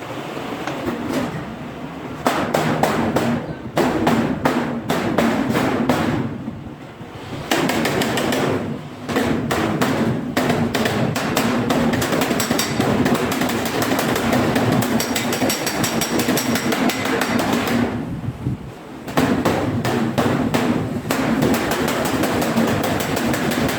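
Rapid, repeated hammer blows on steel sheet, in long runs broken by a couple of short pauses.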